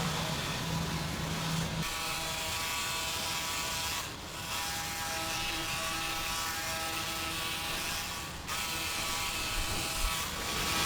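Factory machinery running with a steady whirring, motor-like hum over a hiss. The sound changes abruptly at about two, four and eight and a half seconds in as the shots cut.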